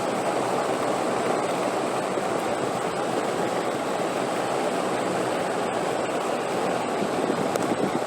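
Steady rushing wind, an even unbroken hiss with no other sounds in it.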